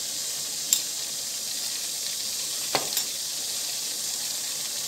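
Tomato masala sizzling in oil in a metal kadai, a steady frying hiss, with a few sharp clicks of a metal spatula against the pan as it is stirred: once about a second in and twice near three seconds.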